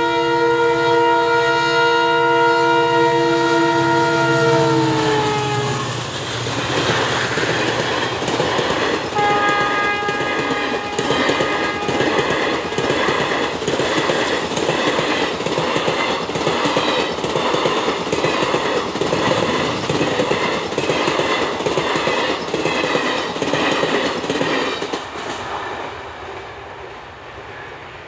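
An Indian Railways diesel locomotive's multi-tone horn is held for about six seconds, its pitch dropping as the locomotive passes. A long passenger train then rolls by, with a rhythmic clickety-clack of the coach wheels over the rail joints, fading away near the end.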